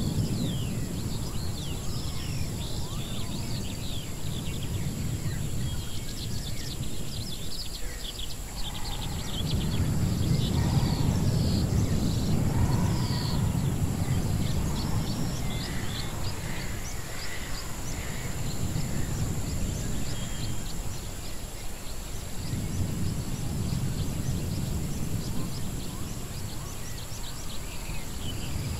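Edited jungle-ruins ambience: a low rumble that swells and fades twice, under many short bird chirps and calls and a steady high hiss.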